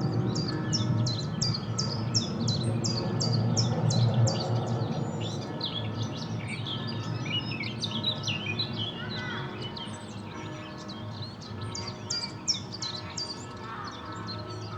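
Small birds singing in quick runs of sharp, high chirps, busiest at the start and again near the end, over distant church bells whose tones hang steadily, with a low city rumble underneath.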